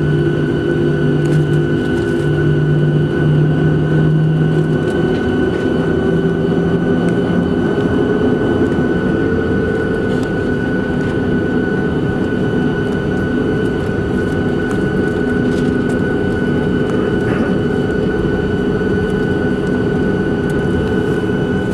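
Cabin noise of a Boeing 737-700 taxiing, its CFM56-7B jet engines running at taxi power with a steady whine. A lower drone fades out about seven seconds in.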